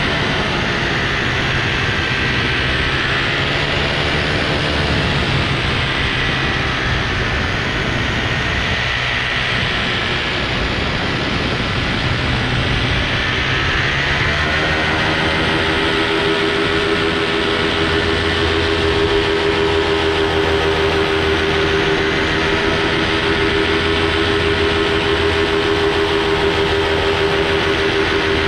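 Steady drone of a small aircraft motor and propeller in flight, a buzzing hum whose pitch dips and rises a few seconds in and again about halfway through, then holds steady.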